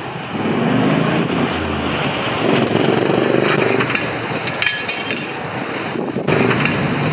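Small utility vehicle's engine running as it drives past. Its pitch rises as it comes closer, then falls away as it moves off.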